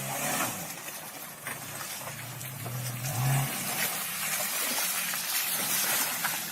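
Vehicle engine running, with its pitch rising briefly about two seconds in, over a steady hiss.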